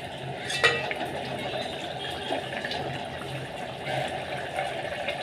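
Chicken pieces simmering and bubbling in their broth in an aluminium pot while a wooden spatula stirs through them, with one sharp knock of the spatula against the pot about half a second in.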